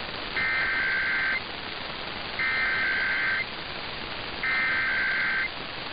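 Emergency Alert System SAME header: three screeching bursts of digital data tones, each about a second long with about a second between them, over steady radio hiss. It is the coded header that opens an EAS test message.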